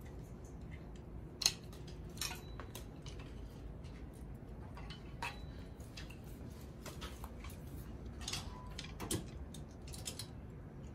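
Wooden clothes hangers clicking and clacking against metal display rails as garments are moved along and taken off the racks: scattered light knocks, the sharpest about one and a half seconds in.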